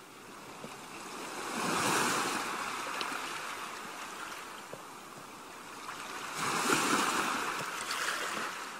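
Ocean surf washing onto a beach: two waves swell and fade, one about two seconds in and another a little after six seconds.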